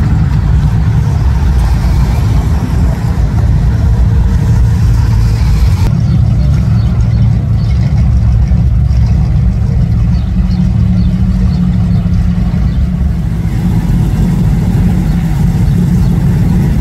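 Engines of classic cars running at low speed as they roll past in a line, a steady deep rumble, with a sharp change in the sound about six seconds in.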